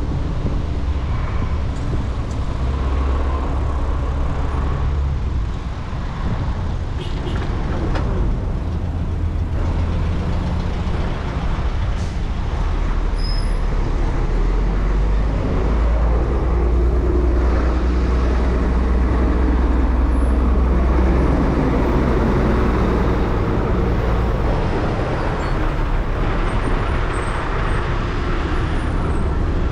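Street traffic: the engines of trucks and cars in a slow queue running close by, a steady low rumble that swells for a while past the middle.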